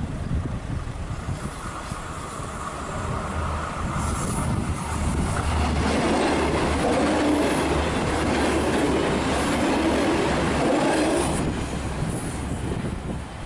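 An X 72500 diesel railcar passing close by, its engine running and its wheels rumbling on the rails. The sound swells about four seconds in, stays loud, and falls away near the end as the train moves off.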